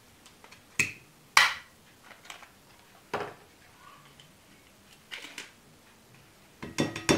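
Caramel flans being turned out of their plastic cups into a glass bowl: a few sharp clicks and knocks a second or two apart, the loudest about a second and a half in, with a quick cluster of clicks near the end.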